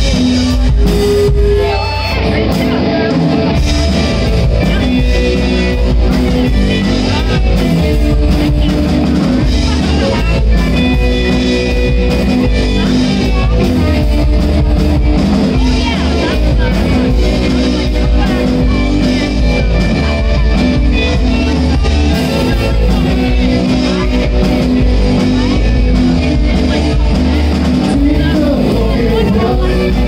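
A rock band playing live: distorted electric guitars, bass guitar and a drum kit, going without a break.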